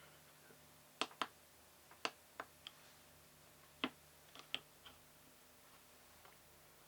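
Faint, light clicks and taps from handling small test gear, about nine at irregular spacing over a few seconds, while a desoldered transistor is tested out of circuit.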